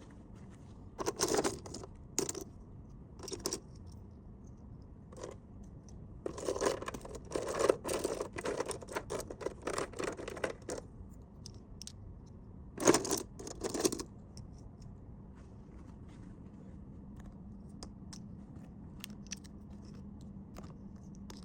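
Packaging being handled in short bursts of rustling, tearing and scraping as an order is packed, busiest in the first two-thirds, then only faint scattered ticks.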